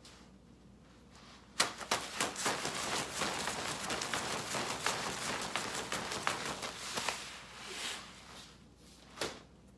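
A 2-inch, 40-foot battle rope worked in rapid waves, its sleeved coils slapping and swishing on a concrete floor in a fast run of hits. The hits start about a second and a half in, last some five seconds, then die away, and one single thump follows near the end.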